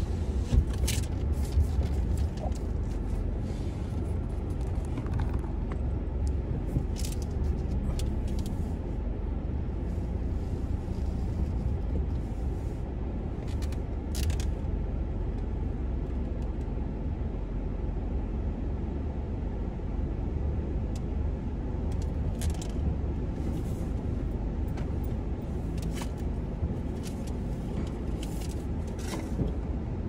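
Steady low rumble of a car rolling slowly, heard from inside the cabin, with a few faint short clicks scattered through it.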